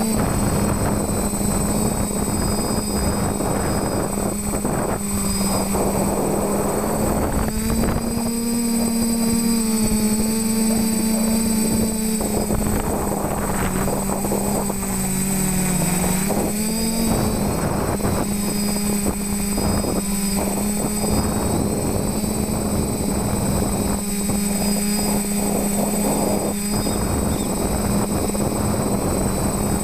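TBS Discovery quadcopter's electric motors and propellers buzzing steadily in flight. Just past halfway the pitch sags briefly as the motors slow, then climbs back up.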